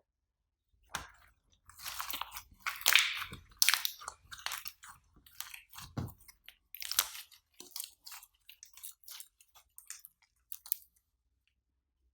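Slime being squished and mixed by hand, making a run of crisp, irregular crackles and pops that stop about a second before the end.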